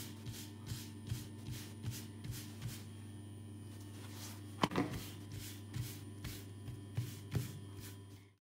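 A palm patting and pressing a thin raw roti down on a dry flat pan, with soft pats about two or three a second and one sharper knock a little past halfway as the roti is lifted and turned. A steady low hum runs underneath, and the sound cuts off suddenly shortly before the end.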